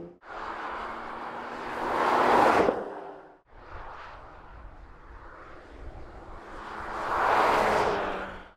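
Porsche Macan GTS's twin-turbo V6 driving past twice, engine and tyre noise swelling as the car comes close, peaking about two seconds in and again near the end. Each pass stops suddenly just after its peak.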